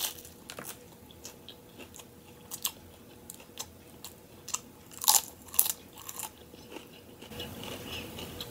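Close-up mouth sounds of biting and chewing crunchy tortilla chips: a scattered run of crisp crunches, loudest about five seconds in.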